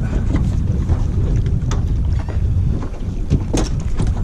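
Wind buffeting the microphone in a loud, uneven low rumble, with a few sharp knocks and clicks in the second half.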